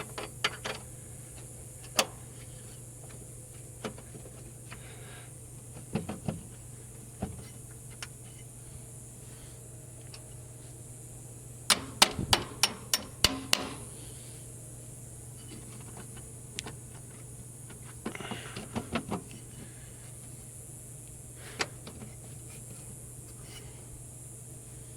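Hand tools working at a seized, broken-off bolt in the bus's aluminium bulkhead, making irregular sharp metal clicks and taps. There is a quick run of about seven clicks near the middle, with a steady low hum underneath.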